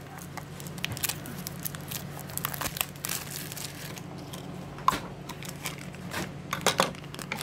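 Toy packaging being handled and torn open: crinkling and tearing with many sharp crackles, densest about two to three seconds in and sparser after. A steady low hum runs underneath.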